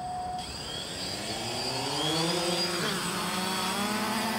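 Quadcopter drone's electric motors and propellers spinning up for take-off under a payload: a buzzing whine that rises in pitch from about a second in, dips briefly near three seconds, then holds fairly steady as it hovers.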